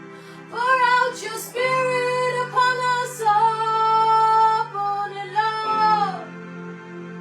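Music: a woman singing long held notes over steady electronic keyboard chords, the voice entering about half a second in and fading out near the six-second mark.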